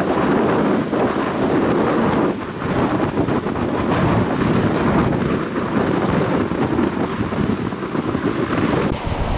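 Tropical-storm wind gusting across the microphone over surging, choppy storm-surge floodwater: a continuous rushing noise that rises and falls, with a brief lull a little over two seconds in.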